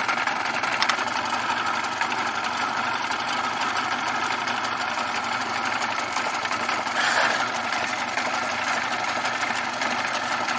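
Old small outboard motor running steadily at low trolling speed, briefly louder about seven seconds in.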